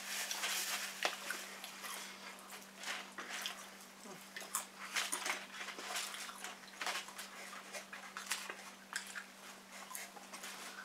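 Close-miked eating sounds: chewing, lip smacks and the irregular clicks and rustles of fries, burgers and cardboard food boxes being handled, over a steady low electrical hum.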